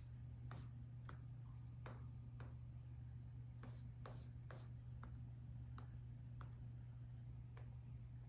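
Laptop keyboard keystrokes: about a dozen scattered, irregular key clicks over a steady low hum.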